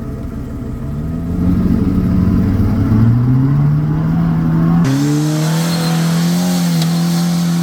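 Vehicle engine revving, climbing in pitch over the first few seconds and then held at high revs. The sound changes abruptly about five seconds in to a different steady, high-revving engine note with more hiss.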